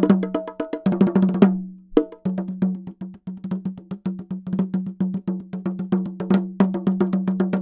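Bongos with natural hide heads played by hand, a quick run of slaps and open tones, each stroke ringing with a clear pitch. A fast flurry about a second in, a brief pause, then a steady pattern of strokes.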